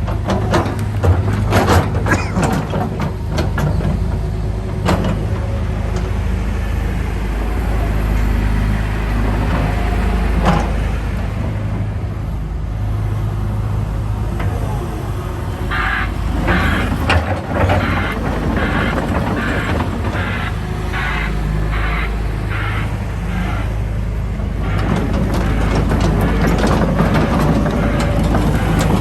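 2015 Hitachi ZX210-LC-5B excavator's diesel engine running steadily. Sharp knocks and clanks come through in the first few seconds. Past the middle, an evenly spaced run of higher pulses, a little more than one a second, lasts several seconds.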